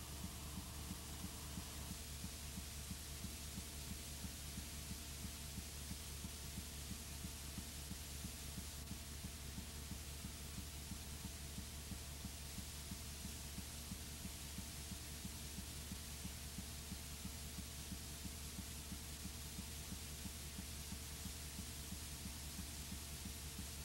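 Steady electrical hum with a fast, even low throbbing and a hiss over it: the background noise of a blank stretch of analog videotape, with no program sound.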